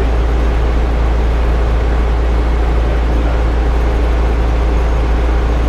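Engine running steadily at idle: an unbroken low drone with a deep rumble underneath.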